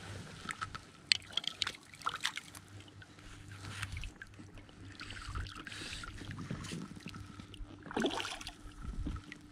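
Water sloshing and lapping as a landing net is worked through the water beside the angler, with a quick run of sharp clicks from handled gear about a second in and a louder swish near the end.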